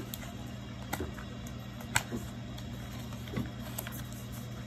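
A few light clicks and rustles of a MagSafe charger's folded paper packaging being handled and opened, over a steady low hum.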